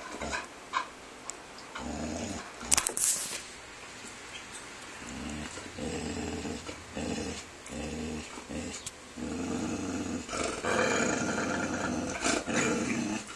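Dog growling in four long, low grumbles with short pauses between, the last the longest, aimed at a person it dislikes. A sharp click about three seconds in.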